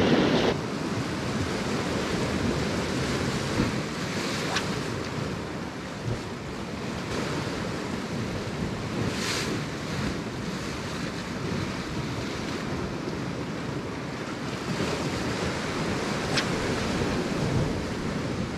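Sea waves surging and washing back among rocks, with wind noise on the microphone.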